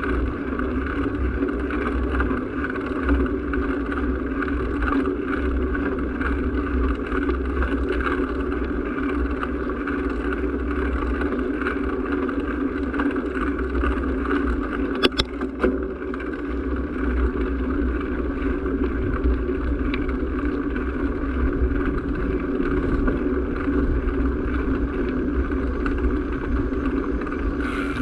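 Steady hum of a small motor vehicle moving at low speed, with low wind rumble on the microphone. A couple of sharp clicks come about halfway through.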